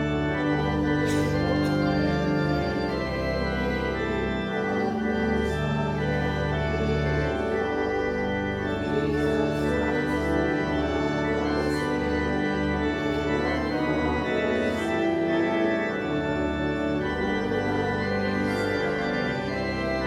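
Church organ playing a hymn in slow, sustained chords that change every second or two.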